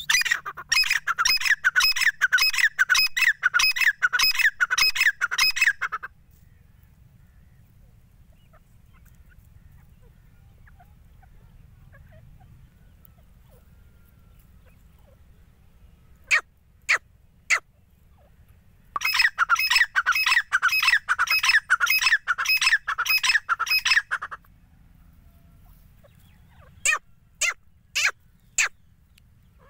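Grey francolins calling: a fast run of loud, repeated high calls lasting about six seconds, three single sharp notes after a pause, a second run of about five seconds, then several single sharp notes near the end.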